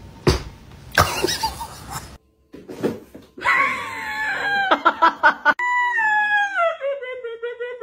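Husky howling: a long pitched call with a few short broken notes, then one long howl sliding steadily down in pitch. A few brief knocks and thumps come before it in the first seconds.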